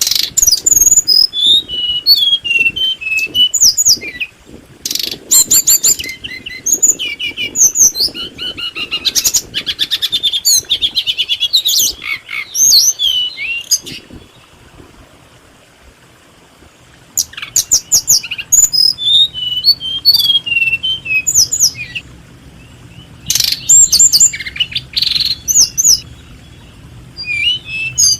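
Small birds chirping and twittering in quick runs of high notes and rapid trills, with a lull of a few seconds about halfway through.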